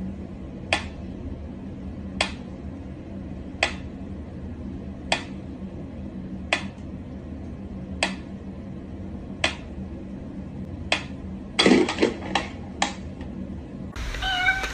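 Wind-up pyramid metronome ticking slowly, one sharp tick about every second and a half. A little over eleven seconds in comes a louder knock followed by a quick run of several clicks.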